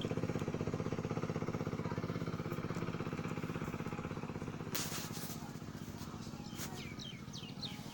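An engine running steadily with a fast, even pulsing that slowly fades. A short hiss comes about five seconds in, and a few short high chirps near the end.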